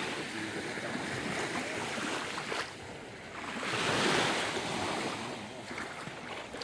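Sea waves washing onto the shore, the surf swelling to a peak about four seconds in and then falling back.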